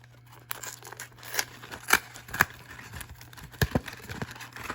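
Cardboard trading-card hanger box and its packs being opened and handled: a string of sharp, irregular snaps and crackles with rustling of the packaging.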